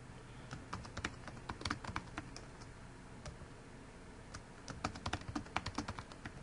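Typing on a computer keyboard: quick clicking keystrokes in two runs, one starting about half a second in and another from about four and a half seconds in.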